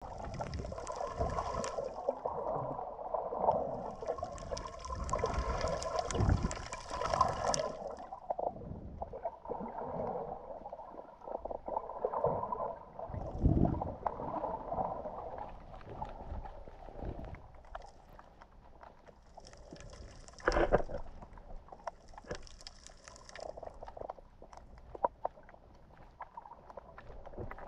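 Muffled underwater sound of water sloshing and gurgling around a submerged camera, with stretches of hissing that come and go twice early on and twice more past the two-thirds mark.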